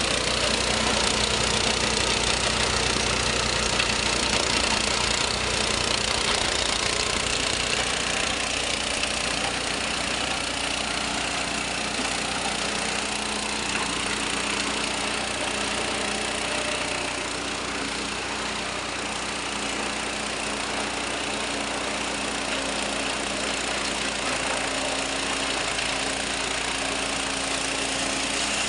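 A motor-driven grinding mill, used for grinding galangal mixed with corn, running steadily with a dense, even grinding noise over a low hum.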